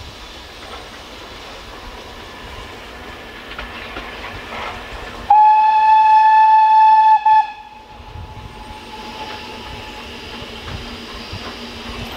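Steam locomotive approaching and sounding its whistle once, a single steady high note lasting about two seconds midway through that falters briefly just before it cuts off. The train's low running noise carries on around it.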